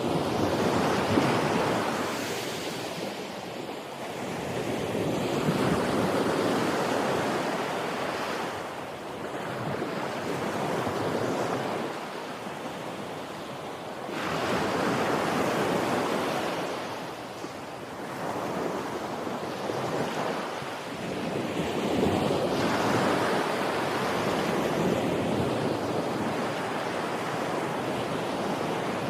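Sea waves breaking and washing up on the shore, a rushing surf noise that swells and ebbs about every four to five seconds.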